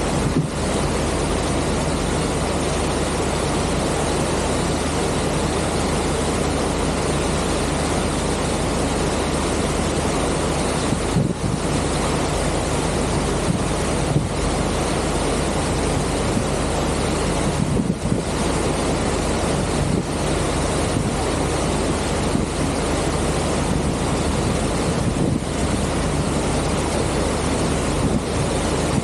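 Passenger ship under way: a steady low engine hum under the rushing and churning of the propeller wash, with wind buffeting the microphone.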